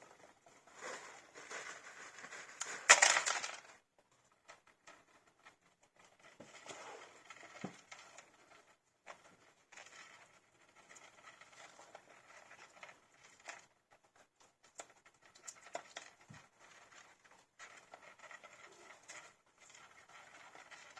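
Young hamster pups scrabbling and rustling about, a quiet irregular patter of small clicks and scratches, with one louder rustle about three seconds in.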